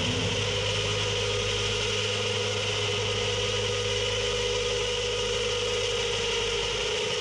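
Steady drone of electric guitar feedback through stage amplifiers, a held low hum under a higher ringing tone; the low hum drops away near the end.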